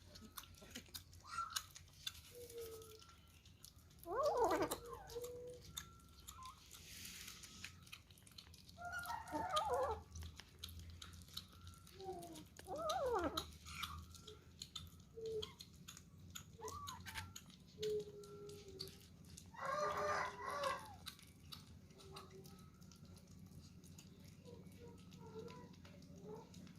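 Kittens eating, with many small wet chewing and lapping clicks. About five loud animal calls break in, each lasting around a second and gliding up and down in pitch.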